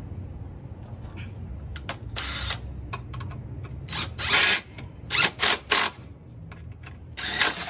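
Cordless drill driving the bolts of an ATV skid plate in short bursts: about six brief whirring runs, three of them in quick succession about five seconds in.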